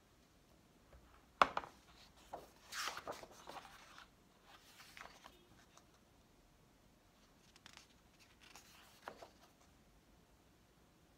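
Hardcover picture book being opened and its pages turned by hand. A sharp knock comes about a second and a half in, followed by paper rustling and sliding, with another softer page turn later on.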